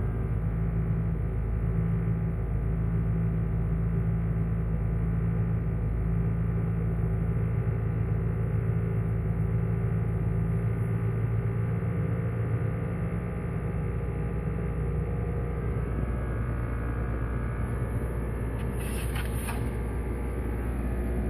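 Jeep Wrangler TJ running at low engine speed with a steady buzzing drone, the buzz the owner is trying to trace. The drone shifts in pitch about two-thirds of the way in, and there is a brief rattle near the end.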